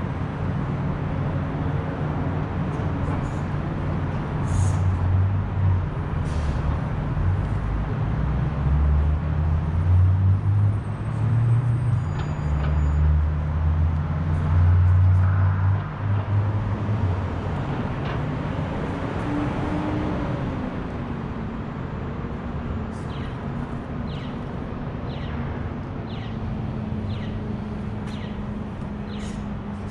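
City street traffic, with a heavy vehicle's engine running low and swelling and fading through the first half. Then lighter, steady road noise, with a run of evenly spaced light ticks near the end.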